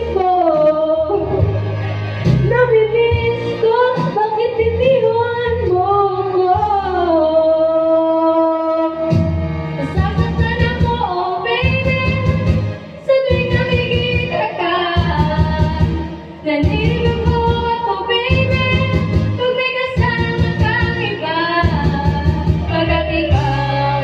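A girl singing karaoke into a microphone over a backing track, with some long held notes; a steady bass beat comes in about nine seconds in.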